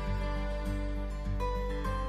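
Instrumental background music: held notes over a steady low bass, with a new note every half second or so.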